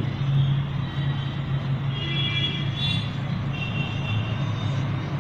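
Chopped vegetables being stir-fried in a stainless steel pot and stirred with a slotted steel spoon: a steady sizzle with the spoon working through the pot, over a continuous low hum.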